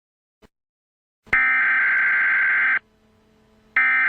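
Electronic emergency-alert tones: two identical buzzing bursts of about a second and a half each, about a second apart, after a faint click.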